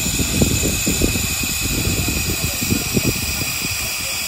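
John Fowler & Co. steam ploughing engine standing in steam, with a steady hiss of steam. A run of low, irregular thumps and knocks comes over the hiss during the first three seconds.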